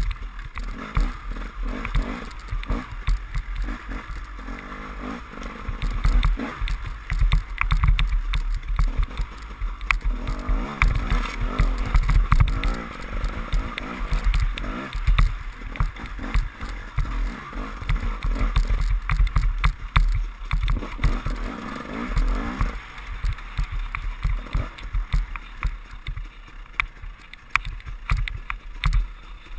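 KTM enduro motorcycle ridden over a rough, muddy forest trail: the engine rises and falls in revs under heavy wind buffeting on the camera microphone, with frequent knocks and rattles from the bumpy ground.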